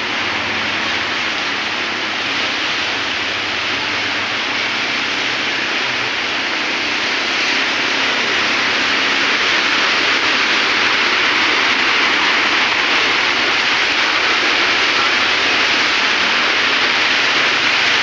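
Steady hiss of a heavy downpour and rushing floodwater on a flooded street, growing a little louder about halfway through.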